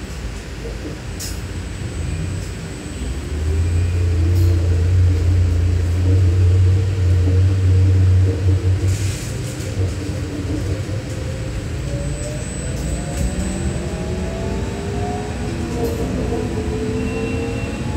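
Cabin noise of a trolleybus under way: a loud low drone for several seconds, then an electric whine that climbs steadily in pitch in the second half as the bus picks up speed.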